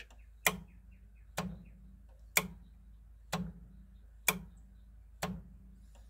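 Newly installed speed-control solenoid on a 1985 Club Car electric golf cart clicking six times, about once a second, as the accelerator pedal is worked. It engages and passes voltage on every click: a good solenoid with clean contacts.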